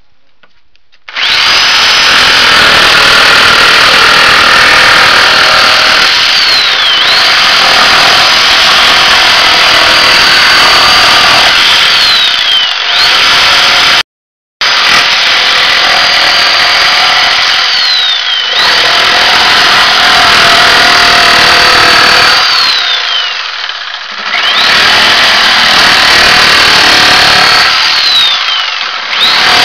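Corded jigsaw starting up about a second in and cutting an arc across pressure-treated wooden slats. Its high whine sags in pitch and recovers several times as the cut loads the motor or the trigger is eased. The sound drops out for a moment midway through.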